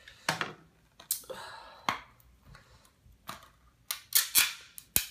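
Fingers picking at and peeling the adhesive security tape off a plastic Blu-ray case: a string of sharp plastic clicks and short scratchy rips, loudest about four seconds in.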